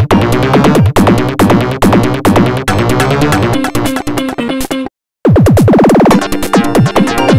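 LG T5100 polyphonic ringtones rendered as MIDI on a computer player: a fast electronic tune over a drum-machine beat stops dead about five seconds in. After a brief gap the next ringtone starts with a run of quick falling synth sweeps, then settles into a new beat.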